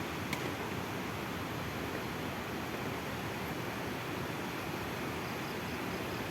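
Steady, even rushing noise of open-air ambience, with a single short click about a third of a second in and a few faint, high, evenly spaced chirps near the end.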